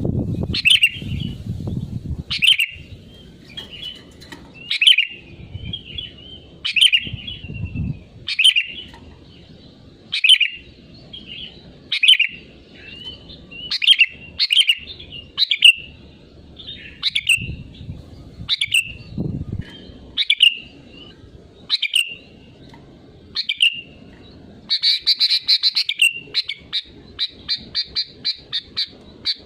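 Sooty-headed bulbul (kutilang) calling over and over in short, clear chirps, about one every second or so. Near the end it breaks into a quick rattling run of notes.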